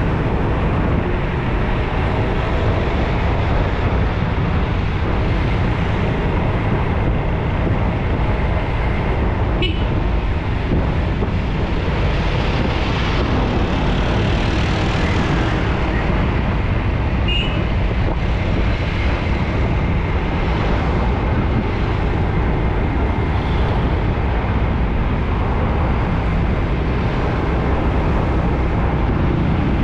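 Steady, heavy road traffic with cars and tour buses passing, a low engine rumble under it all and one vehicle swelling past about halfway. A short high horn toot sounds a little after halfway.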